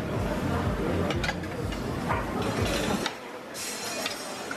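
Restaurant background noise: a steady hiss over a low rumble, with a few light clicks. The rumble drops away about three seconds in.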